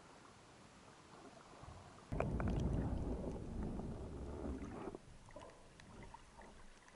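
Water rushing and churning over an action camera as it goes from the surface under the sea during a duck-dive, starting suddenly about two seconds in and lasting about three seconds. Faint underwater crackling clicks follow.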